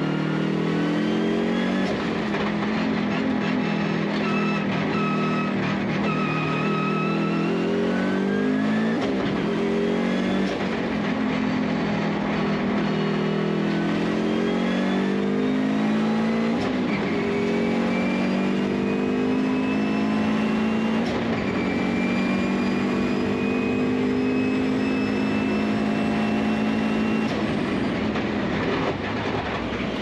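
Race car engine heard from inside the cabin, pulling hard under full throttle: its pitch climbs and drops back several times as it shifts up through the gears.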